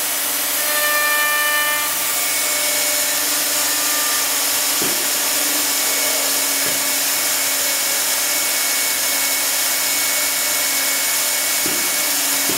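Counter-rotating router spindles of a Kval MLX CNC door machine cutting a wooden door's edge: a steady, loud high-pitched whir over a low hum, with a brief pitched whine in the first two seconds.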